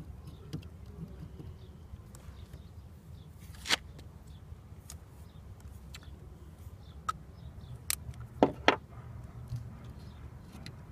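A few sharp clicks and knocks, two of them close together near the end, over a steady low hum.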